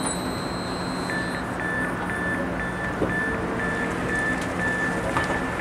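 Door signal of a Stadler FLIRT III electric train: a row of short high beeps, about two a second, starting about a second in as the doors open, over the steady hum of the standing train. A steady high whine stops about a second and a half in.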